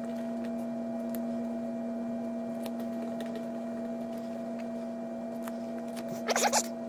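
A steady hum with a few faint clicks, and about six seconds in a short, high, wavering call.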